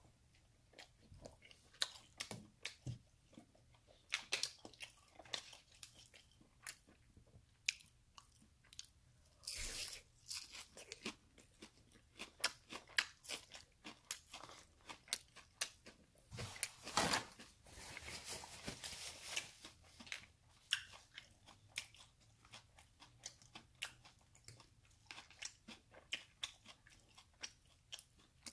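Close-miked chewing of crispy fried breakfast food, hash brown and bacon, with many quick wet clicks of the mouth and a few longer crunchy bites, the loudest around ten seconds in and again around seventeen to nineteen seconds in.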